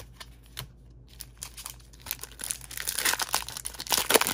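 A few light clicks of cards being handled, then the foil wrapper of a Magic: The Gathering collector booster pack crinkling as it is torn open, loudest near the end.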